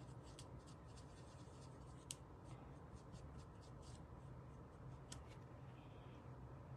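Faint, light tapping and scratching of a marker tip on card stock, about four quick ticks a second for the first few seconds, with a sharper single click about two seconds in and another near five seconds.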